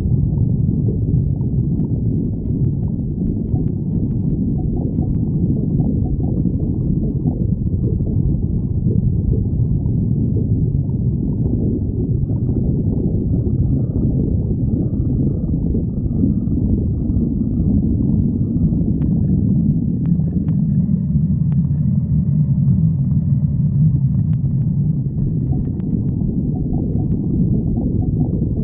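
A person's stomach growling and gurgling in a continuous low rumble that does not let up.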